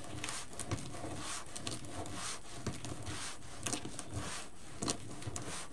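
Deco mesh rustling and crinkling as it is gathered and scrunched into folds by hand: a run of soft, irregular rustles and small crackles.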